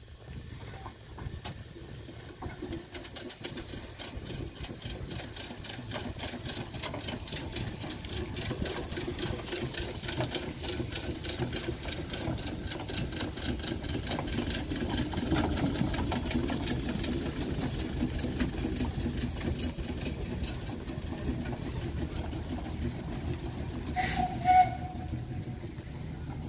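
Steam traction engine running past at walking pace: a steady rhythm of several exhaust beats and clanks a second that grows louder, peaks, then eases off. A short toot sounds near the end.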